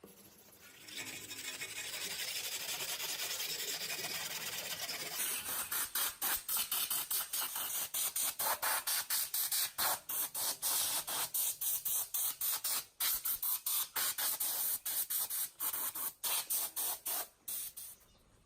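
A hissing spray. It runs steadily for a few seconds, then goes on in rapid short bursts broken by brief gaps, and cuts off near the end.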